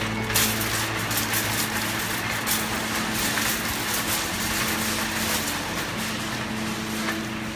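Metal shopping cart rolling and rattling over the floor and out through the store doors, with a steady low hum underneath.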